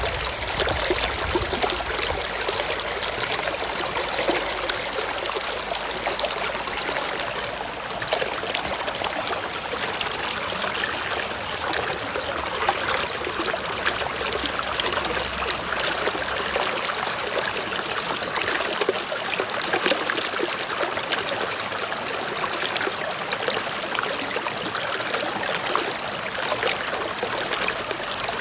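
A small stream running, a steady trickling of water with no deep rumble.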